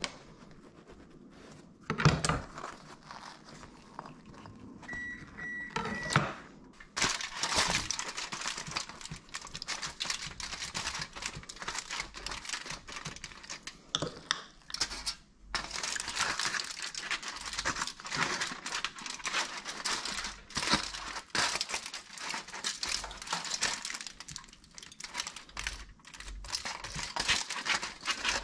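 Fork spreading mashed avocado over a split loaf of bread on aluminium foil: scratchy scraping of the tines over the bread with crinkling of the foil, dense from about seven seconds in. A single knock about two seconds in.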